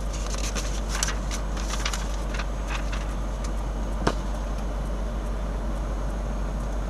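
Steady low rumble of an idling semi truck, with the rustle and crackle of paperwork being handled at the open cab window, then one sharp click about four seconds in.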